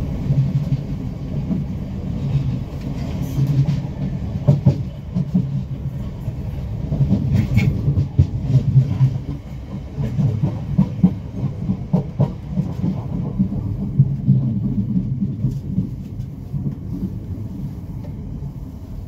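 Class 455 electric multiple unit running on the rails, heard from inside its rear cab: a steady low rumble with scattered clicks and knocks as the wheels pass over points and rail joints. It grows a little quieter near the end.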